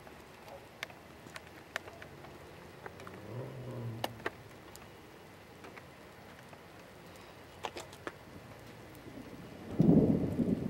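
Thunder from dry lightning: a loud, low rumble breaks in about a second before the end, over scattered faint clicks.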